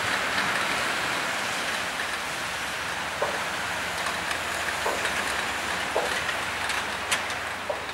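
Scania V8 timber truck driving off on a forest gravel road, its engine and tyres making a steady rumble and hiss. A few sharp clanks come over the second half as the empty log bunks and crane rattle.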